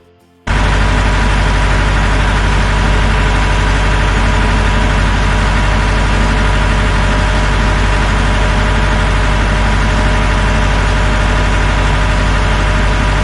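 An engine running steadily at one even speed, loud and unchanging, cutting in suddenly about half a second in.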